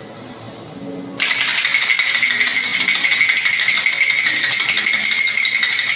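Ice cubes rattling inside a metal cocktail shaker being shaken hard to chill and mix a drink. The rattle starts abruptly about a second in and then runs on as a loud, rapid, continuous clatter.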